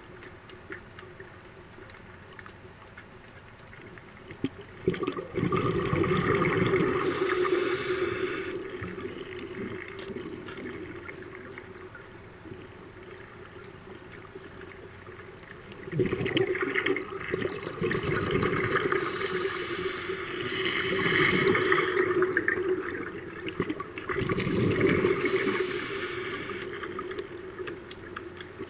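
A scuba diver's regulator heard underwater: loud bursts of bubbling exhaust bubbles lasting a few seconds each, about a third of the way in, around the middle and again near the end, with quieter water noise between them.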